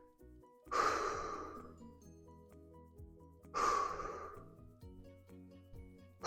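Two deep exhalations, about three seconds apart, each starting suddenly and fading out over about a second, taken during a neck stretch held for several breaths. Soft background music plays underneath.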